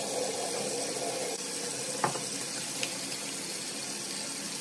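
Cold-water tap running steadily into a sink, with a few brief splashes as water is patted onto the face.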